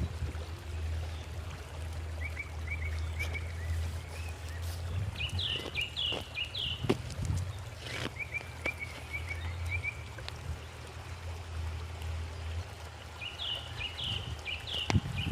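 Small birds chirping in quick runs of short, high notes, several times, over a steady low rumble.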